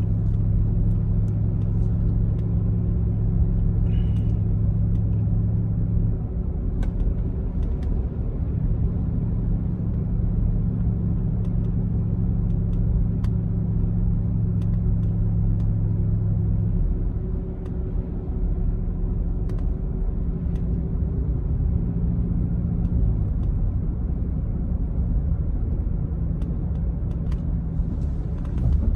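Steady low rumble of a vehicle being driven, engine and tyre noise heard from inside the cab, its low hum shifting in level a few times.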